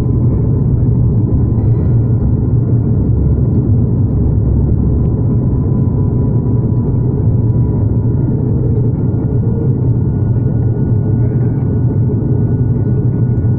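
Cabin noise of an ATR 72-600 turboprop at takeoff power during liftoff and the first seconds of climb: a steady low propeller drone with a faint steady whine above it.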